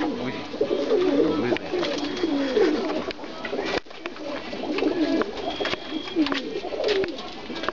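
English tippler pigeons cooing: several birds giving repeated, overlapping rolling coos that waver up and down in pitch.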